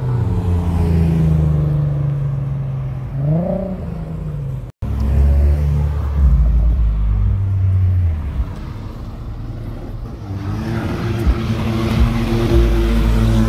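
Car engines running with a low exhaust rumble, one revving up briefly about three seconds in. The sound cuts out for a moment near the middle. Later another engine's note climbs, holds, and falls away near the end.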